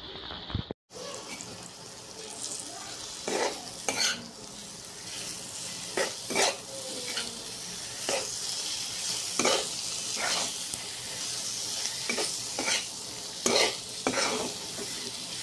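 Beef cubes sizzling in hot oil in a wok, starting about a second in, while a spatula stirs them, scraping and knocking against the pan about a dozen times.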